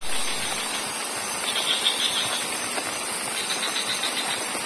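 Portable butane canister stove burning steadily, its flame hissing under a pot of broth at a rolling boil.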